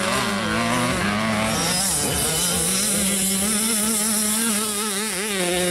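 Motocross dirt bike engine revving hard, its pitch rising and falling rapidly as the throttle is worked.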